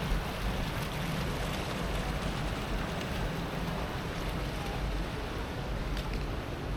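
Steady outdoor city ambience: a continuous low rumble under an even hiss, with no single event standing out.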